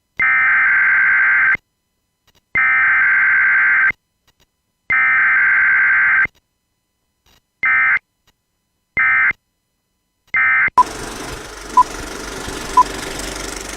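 Electronic beeping tone sounded three times long and then three times short, followed by a steady hiss with a short, higher pip about once a second.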